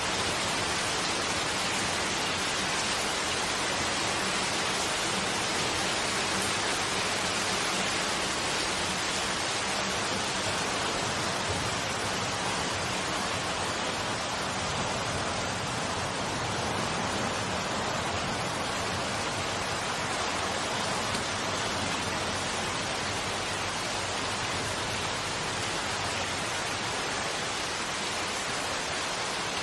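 Rain falling steadily: an even, unbroken hiss with no single drops or other events standing out.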